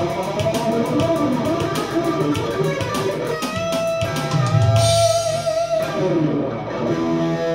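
Electric guitar, a Peavey SC-2 with alnico pickups, played through an amp in a funk jam: busy riffing, then held notes with a wavering vibrato a little past the middle, ending on a steady ringing chord.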